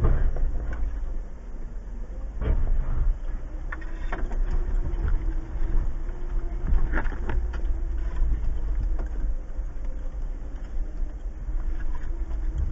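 2015 Jeep Wrangler Unlimited Rubicon's 3.6-litre V6 running at low revs as it crawls a rutted dirt trail, a heavy steady rumble heard from inside the cab. Sharp knocks come a few times, about 2.5, 4 and 7 seconds in, as the Jeep lurches over the ruts.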